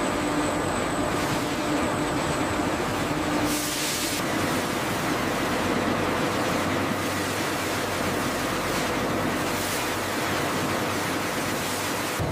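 Paper machine running with a steady hum, giving way about four seconds in to a steady rushing of water pouring off a wire-mesh screen into a steel trough as the pulp drains.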